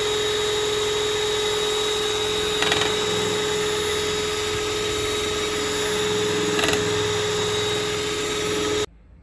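Electric hand mixer running at a steady pitch, its two beaters whipping whole liquid cream as it thickens. Two brief ticks a few seconds apart, and the motor cuts off near the end.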